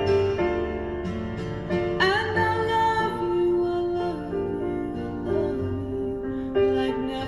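Slow, tender ballad music: piano with a female voice singing.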